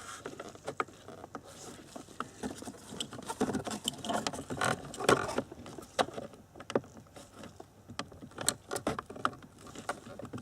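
Irregular plastic clicks, taps and rubbing from hands working the climate control panel's plastic compression tab free while nudging the panel in its dashboard opening, busiest in the middle.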